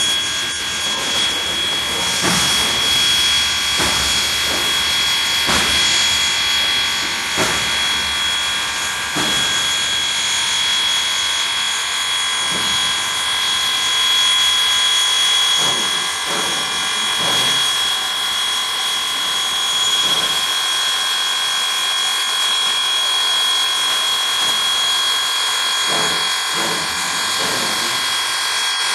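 Steam train running: a steady hiss of steam with a thin high tone held under it, and sharp knocks recurring every second or two, bunched in quick runs twice in the second half.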